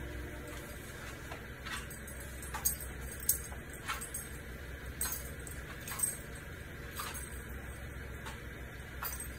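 A dog's claws clicking and scuffing unevenly on a concrete floor with a light metallic jingle, in irregular steps about once a second. The uneven footfalls of a dog with late-stage degenerative myelopathy, whose walking coordination is mostly gone.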